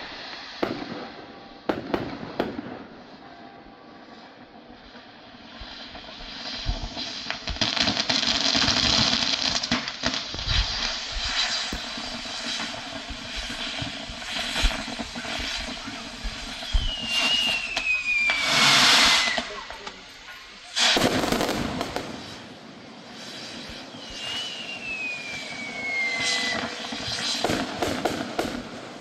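A fireworks castillo burning: steady hissing and crackling with many sharp pops and a couple of loud rushing bursts a little past the middle. Two whistles glide down in pitch, one about two-thirds of the way in and one near the end.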